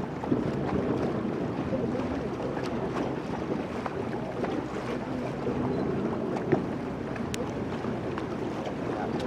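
Tour catamaran's diesel engines running low and steady, with wind on the microphone. There are scattered small clicks and one short knock about six and a half seconds in.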